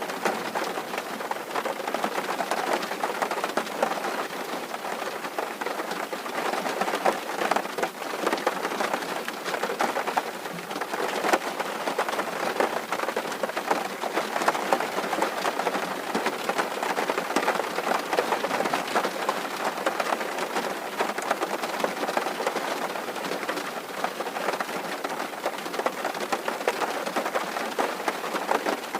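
Steady rain drumming on a tin roof: a dense, even patter of drops striking the metal.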